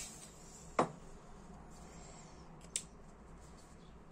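A butane refill hiss cuts off at the start as the can comes off the lighter's valve, followed by small handling sounds: a sharp click under a second in and a fainter tick about two seconds later from the metal lighter and its parts.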